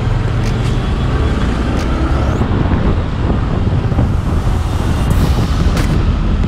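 Traffic and road noise recorded from a moving vehicle: a steady, loud low rumble of engines and tyres, with a few short knocks.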